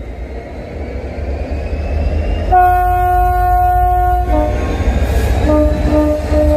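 Train horn sounding over a low rumble that grows louder: one long steady note about two and a half seconds in, then a run of shorter, lower notes.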